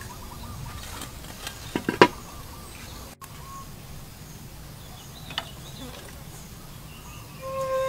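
A few sharp clinks of metal tongs against an aluminium steamer pot and plate while steamed cassava is served, the loudest about two seconds in, over a faint steady background. Flute music comes in near the end.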